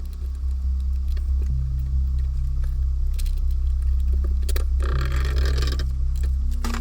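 Synthesizer music: a deep bass note held throughout, with higher sustained notes that come in and drop out in steps, and a few light clicks.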